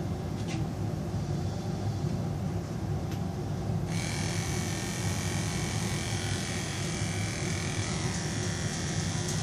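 Electric grooming clippers with a #40 blade running with a steady hum, taking leftover ear-strip glue off a dog's ear. About four seconds in the sound turns brighter and higher as the blade meets the ear.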